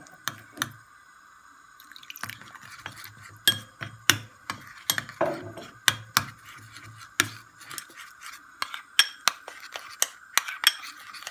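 Metal spoon stirring a thick gram-flour spice batter in a white ceramic bowl, clinking and scraping against the bowl in quick, irregular taps, with a short pause about a second in.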